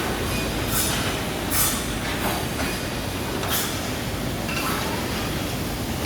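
ATK 687 chainsaw running with a steady, rattling mechanical drone. Short hissing swishes come every second or so.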